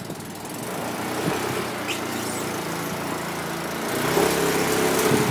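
Quad bike (ATV) engine idling steadily, growing louder and fuller about four seconds in.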